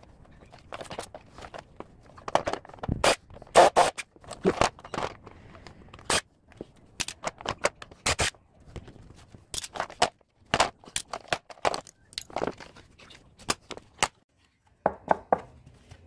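Plastic dehumidifier housing parts being knocked, scraped and pulled apart on concrete, a string of irregular clacks and scrapes, with short runs of a cordless driver backing out screws from the caster base.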